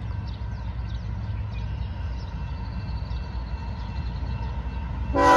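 Canadian Pacific diesel freight locomotive approaching, a steady low rumble, then its air horn starts loudly near the end, a chord of several tones.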